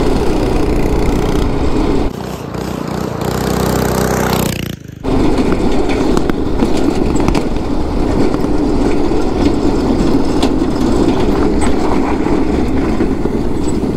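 Go-kart engine running hard at speed, with wind rushing over the microphone and the minibike's engine alongside. The engine note eases about two seconds in, dips sharply for a moment near five seconds, then runs hard again.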